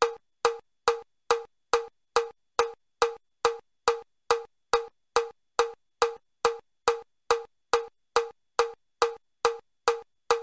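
Metronome clicking evenly at about 140 beats a minute, a little over two clicks a second, each click a short woodblock-like knock. This is the level 5 stepping pace of the Chester step test: 35 steps a minute at four beats per step.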